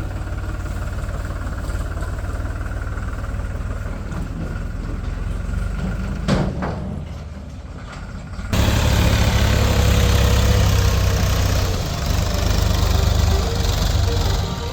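Heavy diesel engine idling steadily, with a short knock about six seconds in. About eight and a half seconds in the sound cuts abruptly to a louder engine running.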